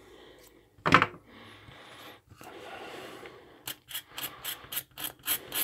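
Box cutter blade scraping the solder mask off a copper track on a printed circuit board: a sharp knock about a second in, a quieter rasp, then from about midway short quick strokes, about four a second.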